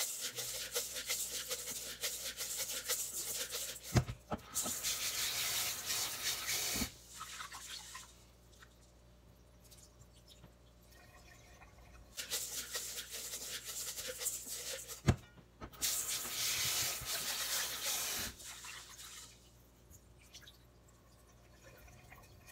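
Rice being washed by hand in a stainless steel bowl: fingers rubbing the wet grains in a noisy scrubbing swish, in two long spells with quieter pauses between, and the rinse water poured off into a steel sink. A sharp clink of the bowl comes twice.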